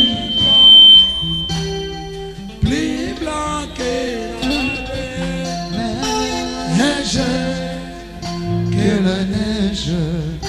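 Worship music: singing with instrumental accompaniment. A high steady tone sounds for the first second or so.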